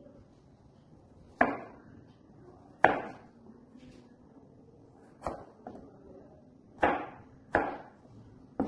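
Chef's knife slicing a peeled potato on a plastic cutting board: slow, separate cuts, about seven in all, each ending in a sharp knock of the blade on the board.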